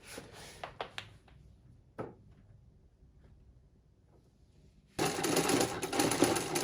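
A few light clicks, then about five seconds in a 1935 Singer 66K treadle sewing machine starts running and stitching at a fast, even rate.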